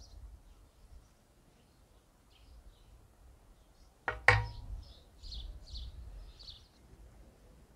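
A wooden spatula knocks once against a ridged grill pan about four seconds in, with a short metallic ring. Small birds chirp several times just after it.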